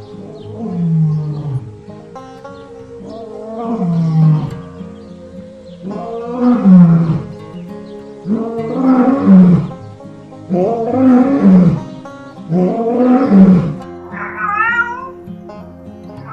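An animal gives about six loud, drawn-out calls roughly two seconds apart, each rising then falling in pitch, then a higher, wavering call near the end, over background guitar music.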